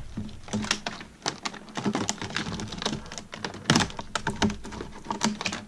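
Calculator packaging being handled: a card insert and plastic tray rustling, with a busy, irregular run of sharp clicks and taps. The loudest knock comes nearly four seconds in.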